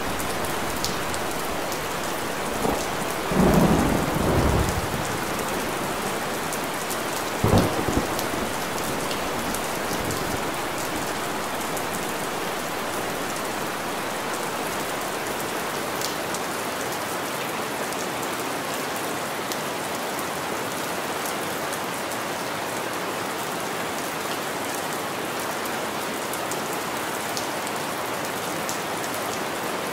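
Steady rain hissing, with two short low rumbles, one about three to four seconds in and another near eight seconds.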